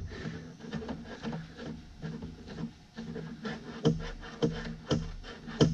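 Small irregular clicks, taps and scrapes from the Volkswagen Autostick shift lever's contact-point parts being handled and adjusted by hand, over a steady low hum.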